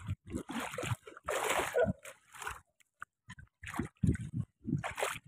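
Footsteps wading through shallow seawater, each step an irregular slosh and splash.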